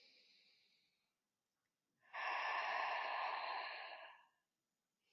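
A woman's long audible breath out, starting suddenly about two seconds in and fading away over about two seconds.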